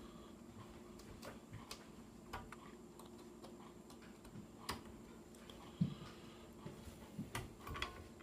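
Faint, irregular small clicks and ticks of a screwdriver turning out a tiny screw that holds a laptop LCD panel in its lid, over a low steady hum.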